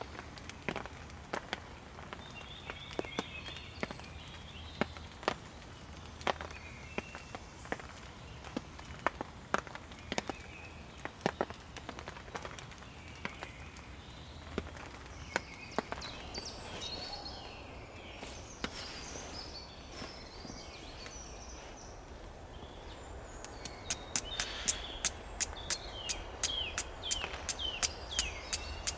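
Woodland ambience: scattered sharp ticks and short bird chirps over a steady outdoor background. About four seconds before the end, a quicker run of ticks comes in with a string of short falling chirps.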